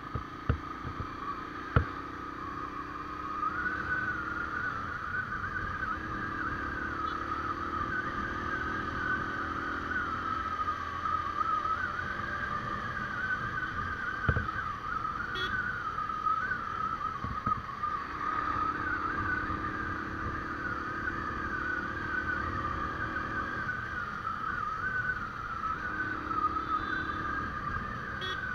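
Motorbike riding through town traffic, heard from the rider's seat: steady engine and road noise with a high wavering whine throughout. There are a few sharp knocks near the start and about halfway through.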